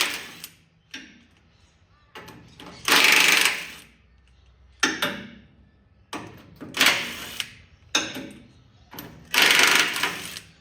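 Ratchet wrench with a half-inch Whitworth socket spinning nuts off in four quick runs of about a second each, with a few sharp metal clicks between the runs. The nuts are loose and turn off easily.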